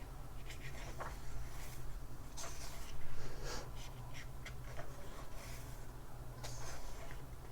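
Paper pages of a thin book being handled and turned: soft swishes and rustles, the loudest about three seconds in, over a steady low hum.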